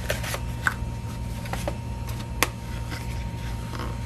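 Handling of a cardboard product box: scattered scrapes, rustles and light taps of cardboard as the box is taken apart, with one sharp tap about two and a half seconds in, over a steady low electrical hum.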